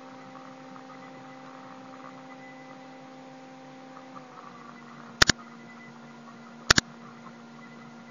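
Two sharp double clicks about a second and a half apart, each the press and release of a computer mouse button. They sit over a steady electrical hum whose pitch dips slightly about four seconds in.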